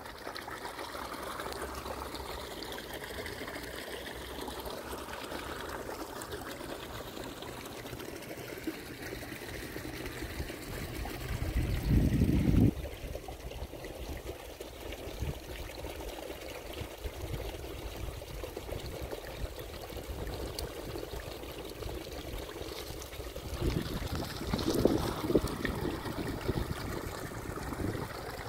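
Water trickling and pouring steadily, with a brief louder surge about halfway through.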